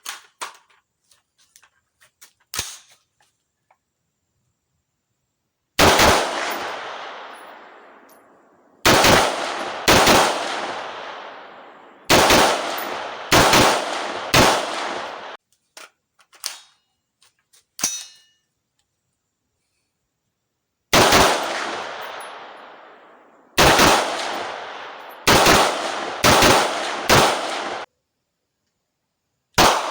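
AR-15 semi-automatic rifle fired in slow single shots, about a dozen in two strings, each sharp report trailing off in a long echo. Small clicks and light metallic handling sounds come before each string.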